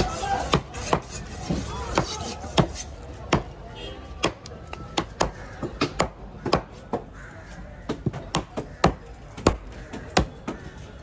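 Heavy broad-bladed fish knife chopping yellowfin tuna loin into chunks on a thick wooden block: sharp, uneven chops, about two a second.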